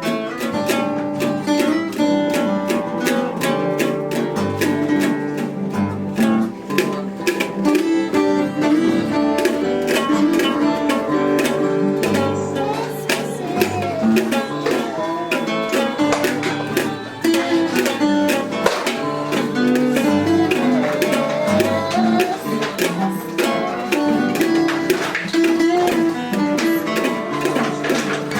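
Instrumental music played live on a plucked string instrument, picked and strummed in a steady rhythm over a repeating bass line.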